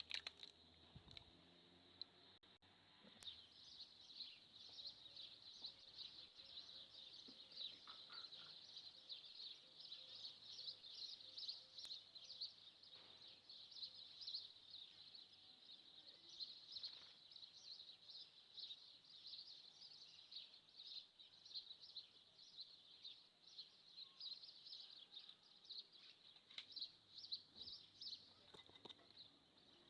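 Faint sizzling and crackling of food cooking in a hot pan, starting about three seconds in and continuing steadily.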